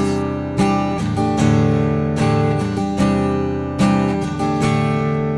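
Worship band playing an instrumental passage: acoustic guitar strumming chords about every 0.8 seconds over a steady low bass.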